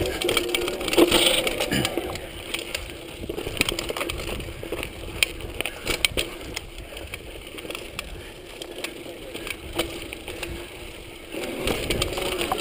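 Mountain bike rolling down a dirt singletrack: tyres crunching over dirt and leaf litter, with frequent sharp clicks and knocks as the bike rattles over bumps, and a louder low rumble near the end.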